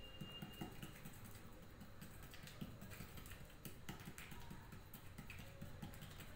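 Fingertips patting and tapping a ball of anarsa rice-flour dough flat on a sheet: a faint, quick run of soft irregular taps.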